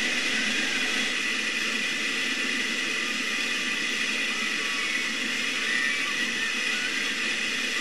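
River rapids rushing steadily as whitewater pours over rocks.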